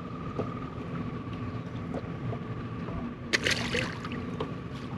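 Steady hum and thin whine of a fishing boat's motor, with water gurgling against the hull. There is a short burst of rustling noise about three and a half seconds in.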